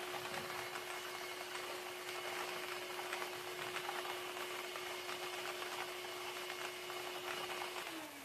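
Lottery ball draw machine running: a steady motor hum with many small clicks of the plastic balls clattering around inside its chambers. Near the end the hum drops in pitch and stops as the machine is switched off.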